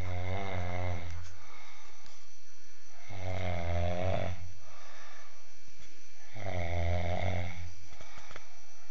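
A man snoring: three low, buzzing snores, each a little over a second long, coming about every three seconds.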